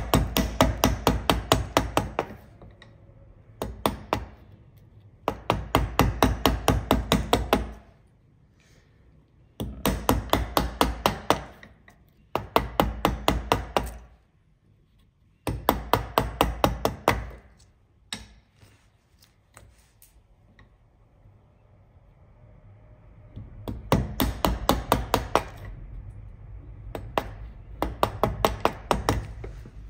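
Wooden carpenter's mallet striking a wide bevel-edge chisel into timber in quick runs of about five blows a second, each run lasting a second or two, with short pauses between. This is the waste being chopped out of a tee halving joint, a little at a time down to the gauge line.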